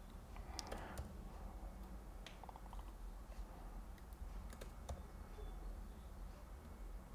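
Typing on a computer keyboard: a few keystrokes at a time, separated by pauses, with a quick run of several about two and a half seconds in. A low steady hum lies under it.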